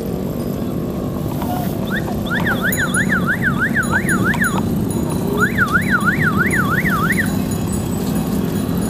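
An electronic siren yelping in two short bursts, its pitch sweeping up and down about three times a second. Under it runs a steady low rumble of wind and road noise.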